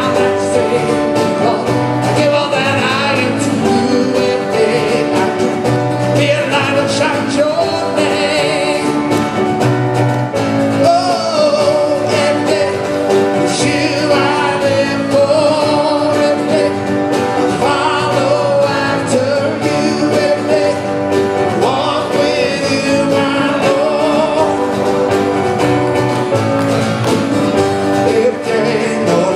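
Live worship band playing a song: singing over guitar, drum kit and keyboard, with a steady beat.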